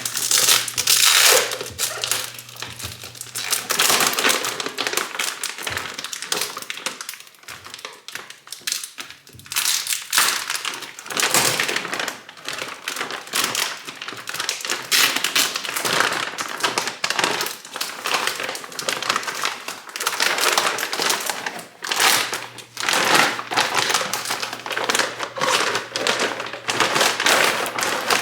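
Packing material being handled while a turbocharger is unwrapped, crinkling and rustling in irregular, uneven handfuls.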